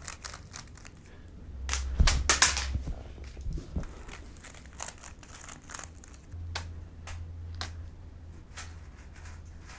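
A plastic 3x3 speed cube being scrambled by hand, its layers clicking as they are turned in short irregular bursts. There is a louder, denser burst of turning and handling noise about two seconds in.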